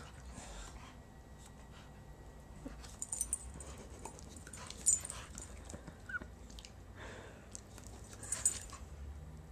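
Staffordshire Bull Terrier panting and snapping its jaws at the air, with scattered sharp clicks and a brief whimper about six seconds in.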